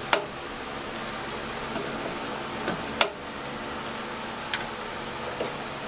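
A few sharp metallic taps and clinks of hand tools on the car's sheet-metal body, the two loudest just after the start and about three seconds in, with a fainter one about a second and a half later, over a steady low hum.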